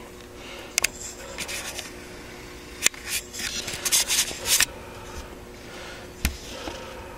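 Scattered clicks, taps and rubbing of light handling, bunched together about three to four and a half seconds in, with a single knock near the end, over a faint steady hum.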